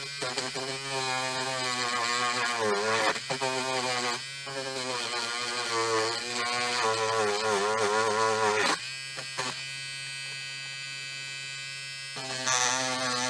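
Small electric rotary tool with a brush spinning. Its motor whine wavers and dips in pitch while the brush is pressed against a rusty lock part. About nine seconds in it runs steadier and quieter, then is loaded again near the end.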